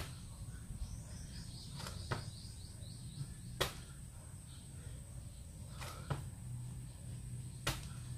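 Sharp slaps and thuds from a person doing burpees, hands and feet hitting the floor about every two seconds, some in quick pairs. A short run of high chirps sounds in the first few seconds over a steady high tone.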